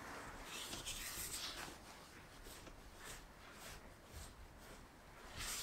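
A spatula scraping and cutting through crumbly flour, matcha and butter tart dough against a glass bowl: soft, gritty scraping strokes, strongest about a second in and again near the end.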